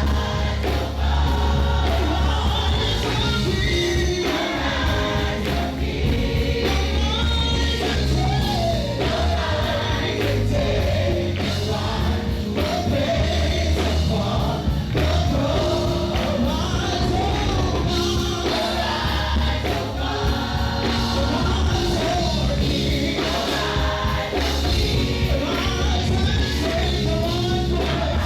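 Live gospel praise music: a band with heavy bass and a steady beat backing a group of singers.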